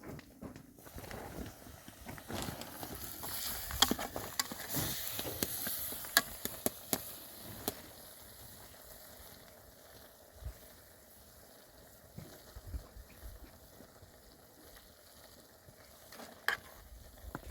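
Food sizzling as it fries, with a few sharp clicks of a utensil against the pan; louder in the first half, then settling to a quieter sizzle.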